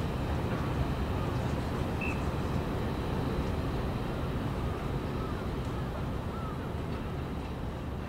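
Low, steady rumble of a harbour tug's diesel engines running under way, heard across the water.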